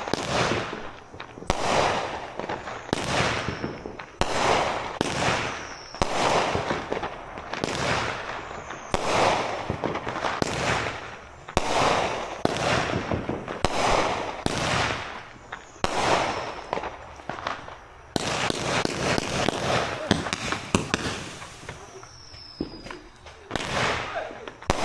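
Large consumer aerial firework firing a long run of shots: a sharp bang about every second, each trailing off in crackle, with a few falling whistles. Near the end comes a stretch of dense crackling.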